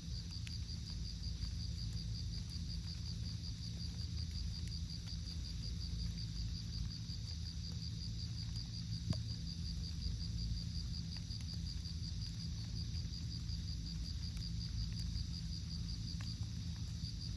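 Insect, likely a cricket, chirping in a steady high trill of rapid, even pulses without a break, over a low steady rumble of background noise.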